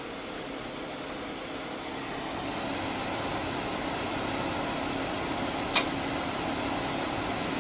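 Atwood RV propane furnace blower running with a steady hum, growing louder over the first few seconds as it comes up to speed. A single sharp click about six seconds in, as the propane burner lights.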